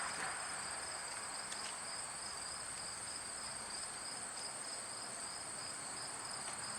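Crickets chirping steadily, a continuous high-pitched trill with a second, pulsing trill a little lower.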